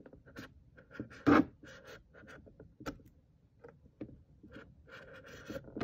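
Hobby knife blade scoring clear plastic: several short scratching strokes with small clicks between, the loudest about a second in.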